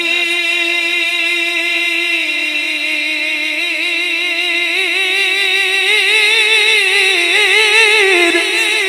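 A man's voice singing a naat into a microphone, drawing out one long note with no words. The note holds steady for about two seconds, then wavers in slow ornamented turns, climbing a little before settling back near the end.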